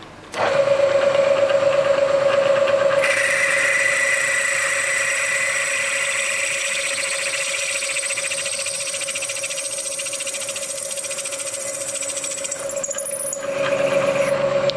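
Bridgeport milling machine spindle running with a steady whine while a drill bit cuts into the bolt hole of a six-cylinder Ford cylinder head. From about three seconds in, a harsher, noisier cutting sound joins as the bit bites. It eases off a little before the end, then grows louder again.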